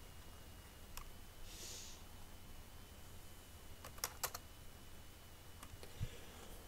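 A few faint computer keyboard clicks: one about a second in, two in quick succession about four seconds in, and a softer one near the end.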